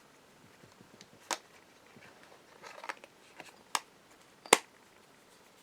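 Sharp little plastic clicks and taps from handling a Nokia 2660 Flip phone and its parts: four distinct clicks, the loudest about four and a half seconds in.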